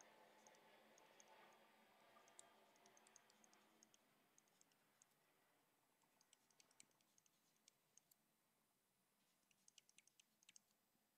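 Very faint, scattered light clicks and taps of a stylus on a tablet screen while handwriting, in a few short clusters. A faint rushing background fades out over the first four seconds.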